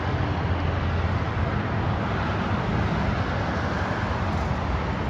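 Steady road traffic noise: an even low rumble with hiss, with no distinct events.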